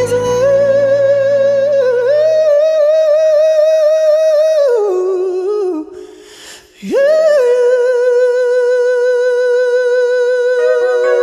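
A man singing long, high held notes into a microphone, the backing music fading out within the first few seconds. About six seconds in he stops briefly for a breath, then holds one long, steady note with light vibrato.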